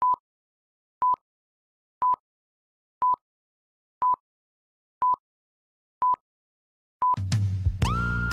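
Film-leader countdown beeps: a short, steady, high beep once a second, eight times, with dead silence between. Loud music with a heavy bass comes in right after the last beep, about seven seconds in.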